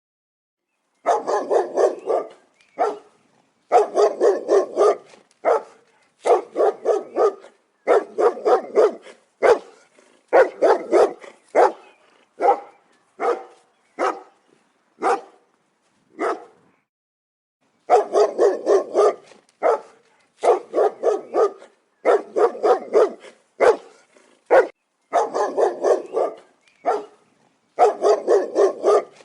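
German Shepherd barking in rapid volleys of several deep barks each, with short gaps between volleys and one longer pause about halfway through.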